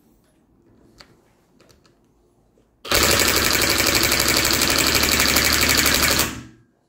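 Impact wrench hammering rapidly for about three and a half seconds, starting about three seconds in and stopping abruptly, as it drives a nut onto a bolt held in the jaws of an adjustable wrench.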